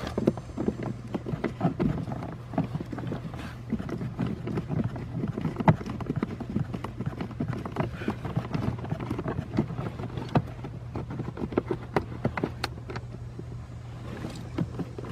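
A blower motor mounting screw being backed out with an 8 mm socket on a 1/4-inch-drive hand driver: irregular small clicks and scrapes of the tool and socket against the screw and plastic blower housing. A steady low hum sits underneath.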